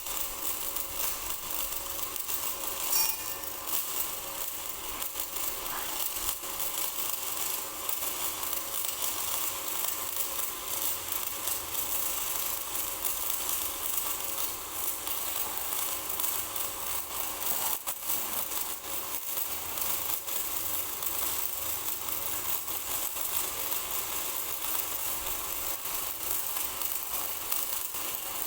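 Stick (shielded metal arc) welding with an LB-52 low-hydrogen electrode: the arc crackles and sizzles steadily without a break.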